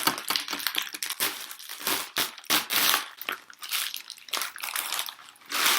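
Plastic packaging bag being torn open by hand and crinkled, a dense run of crackling rustles.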